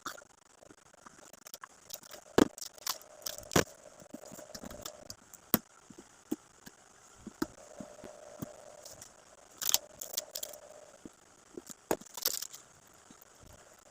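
Gift packaging being handled and unwrapped: scattered sharp clicks and taps, with short bursts of crinkling plastic wrap near the middle and again near the end.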